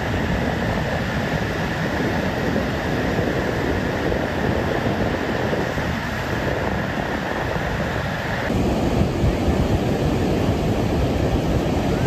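Steady rush of ocean surf with wind rumbling on the microphone, turning a little louder and gustier about eight seconds in.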